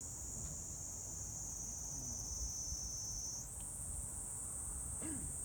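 A chorus of night insects trilling steadily at a high pitch. The pitch steps up slightly about halfway through.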